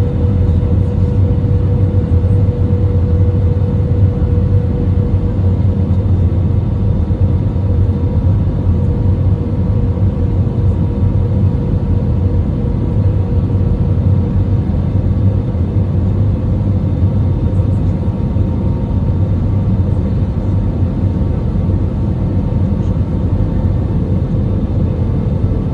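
Steady cabin noise of an Airbus A319 airliner: deep rumble of airflow and jet engines with a steady hum that dips slightly in pitch near the end.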